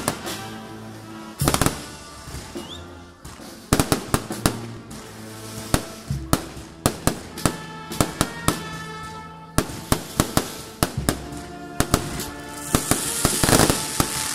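Fireworks going off in many sharp, irregular cracks and pops, with a louder crackling burst near the end. Music with held notes plays underneath.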